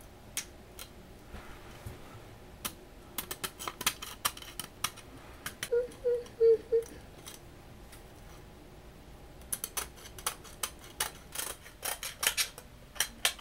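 Scissors cutting window screen mesh: runs of short, crisp snips with pauses between the runs.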